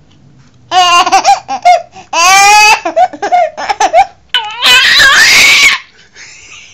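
Baby laughing in three bursts of high-pitched giggles, each one starting on a drawn-out squeal and breaking into quick "ha-ha" pulses.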